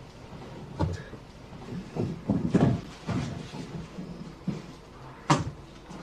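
Quiet handling noises: soft knocks and rustling, with a sharp click about a second in and another near the end, like a cupboard or door latch.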